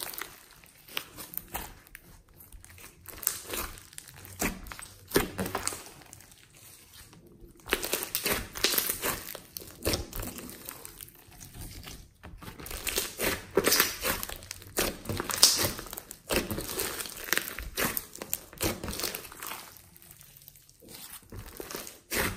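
Hands squeezing and kneading a large mass of glossy slime studded with foam beads, giving dense, irregular sticky clicks and crackles that come in bursts with short lulls between squeezes.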